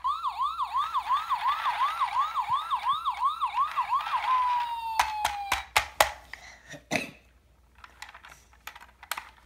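Electronic siren sound effect of an Imaginext Rescue Heroes Matt Medic toy ambulance, set off by pressing the button on its roof: a fast warble of about three rises and falls a second that ends after about four seconds with a falling tone. Several clicks and knocks follow.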